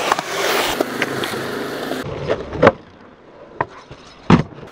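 Skateboard wheels rolling over concrete, then several sharp clacks of the board on concrete and the ledge. The heaviest clack comes near the end, as the board lands.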